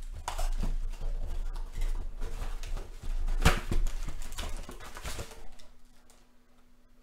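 A cardboard trading-card box being opened and its stack of card packs pulled out: cardboard and packs rustling, scraping and clicking as they are handled, with a sharp knock about halfway through. It goes quieter near the end.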